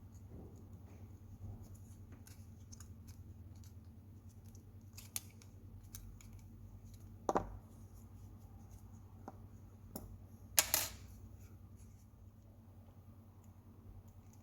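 Small clicks and ticks from handling and fitting the plastic parts of a Chromecast remote during reassembly, with two louder sharp snaps about seven and ten and a half seconds in, over a low steady hum.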